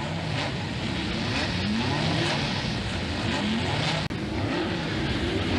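Racing car engines revving, their notes rising in pitch again and again and overlapping as several cars accelerate. The sound cuts out for an instant about four seconds in.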